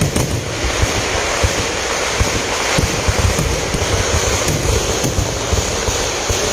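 Kerala temple fireworks (vedikettu) going off in a dense barrage, many booms and cracks following one another so fast that they merge into one continuous loud roar.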